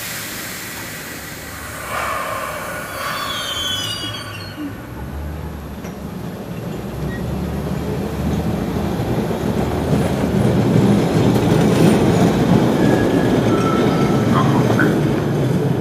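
MBTA Orange Line subway train running past the platform. Its wheels squeal on the rail for a couple of seconds, then the rumble of wheels on track grows steadily louder, loudest near the end.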